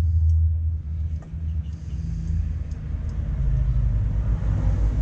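A steady low rumble with a couple of faint clicks.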